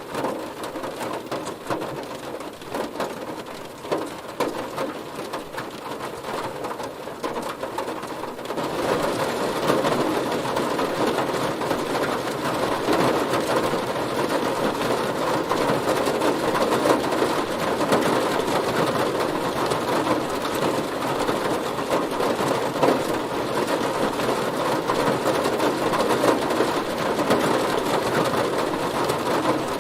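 Heavy rain falling on a car, a dense steady patter of drops on the body. It becomes heavier and louder about a third of the way through, then holds steady.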